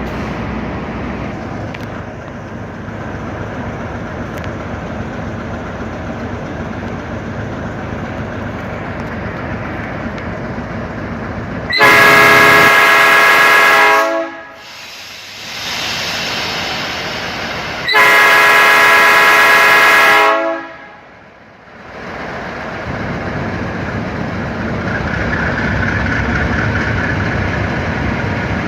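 A train's air horn sounds two long blasts of about two seconds each, the first around twelve seconds in and the second around eighteen seconds in. Between and around them runs the steady rumble of the train moving on the rails.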